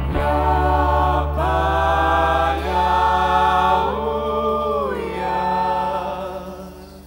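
Several voices singing sustained chords in harmony over a held low bass note, the chord changing about every second and fading away near the end.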